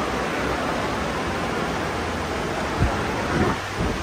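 Portable evaporative air cooler's fan running, a steady rush of air close to the microphone, with a few low thumps of air buffeting the mic near the end.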